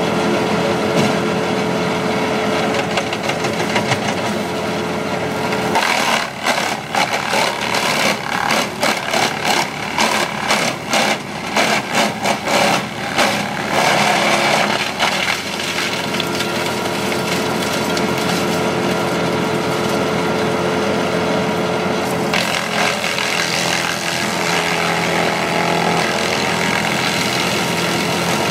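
Timberwolf 150 VTR wood chipper running steadily. From about six seconds in until about fifteen seconds, a fast, irregular series of sharp cracks and chomps as wood is fed through and chipped, then the steady running resumes.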